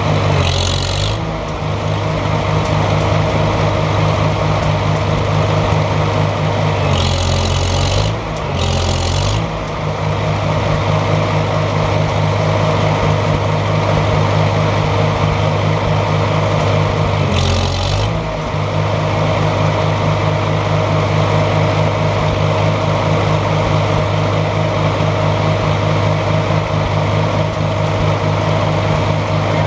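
A heavy vehicle engine running steadily, broken by four short bursts of hissing: one near the start, two close together about a quarter of the way in, and one just past the middle.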